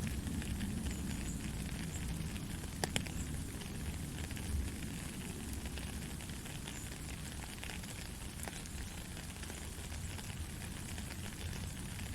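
Soft rain falling steadily, an even hiss over a low rumble, with a few sharp drip ticks, one near the third second and another past the eighth.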